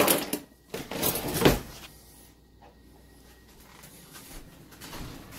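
Kitchen utensil drawer being rummaged, with rattling, then pushed shut with a thump about one and a half seconds in; after that only faint handling noise.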